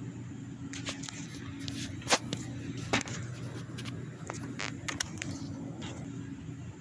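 Steady low machine hum, with a scatter of sharp clicks and taps over it, the two loudest about two and three seconds in.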